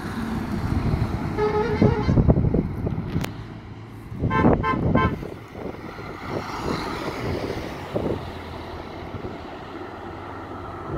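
Vehicle horns honking over the rumble of passing traffic. There is one short horn blast about a second and a half in. A louder run of quick toots follows a few seconds later.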